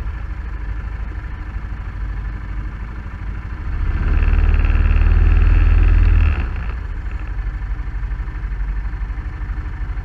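Engine of an off-road vehicle running slowly over a rocky trail. Its throttle opens and it runs louder for about two seconds around four seconds in, then it drops back to a steady low-speed run.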